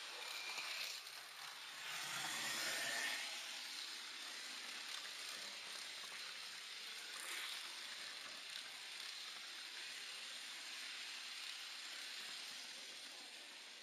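Running noise of an H0 model train heard from on board: a steady hiss of the wheels on the rails, a little louder about two to three seconds in.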